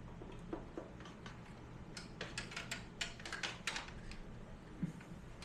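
Quiet, scattered light clicks and taps of cables and plugs being handled and tucked into an external GPU enclosure, busiest in the middle stretch.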